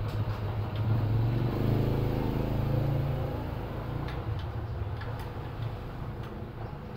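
A motor vehicle's engine running steadily, fading away, with a few light metallic clicks in the second half as the belt and pulley are handled.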